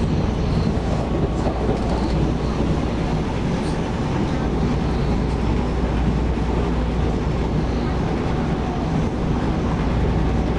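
Running noise of a Taiwan Railways EMU700 electric multiple unit, heard from inside the carriage: a steady rumble of wheels on rail.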